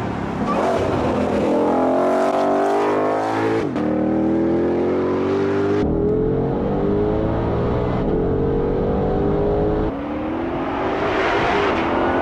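A 2021 Shelby GT500's supercharged 5.2-litre V8 accelerating hard, its pitch climbing again and again and dropping back at each quick upshift. In the middle stretch it is heard muffled from inside the cabin, and otherwise from the roadside as the car approaches.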